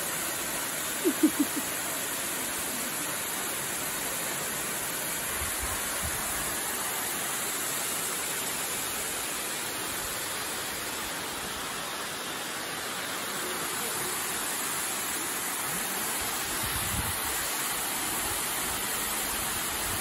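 Waterfall pouring down a rock cliff into a pool: a steady rushing of falling water. Three quick pitched notes about a second in briefly stand out above it.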